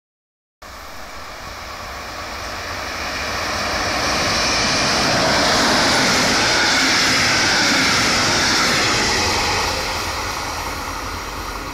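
Regional train of double-deck passenger coaches passing at speed, its wheels running on the rails. The sound swells from about half a second in, peaks in the middle, then fades toward the end as the train moves away.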